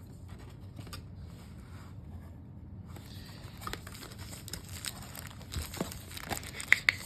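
Packaging crinkling and rustling as it is handled, with scattered light clicks and taps that get busier in the second half and two sharper clicks near the end.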